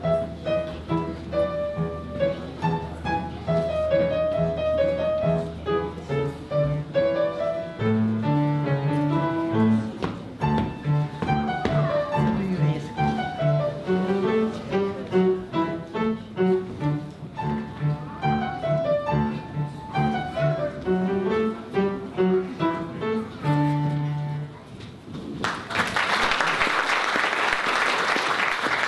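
Upright piano played solo, a lively piece of quick running notes that ends about 24 seconds in. Audience applause starts a second later and fills the last few seconds.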